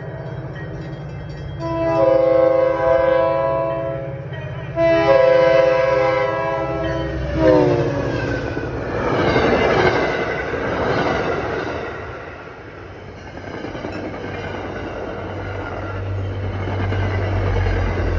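MBTA commuter rail train sounding two long blasts on its multi-note horn, the pitch dropping at the end of the second as it passes, then the coaches rushing past with loud rail noise that fades. A low rumble builds near the end.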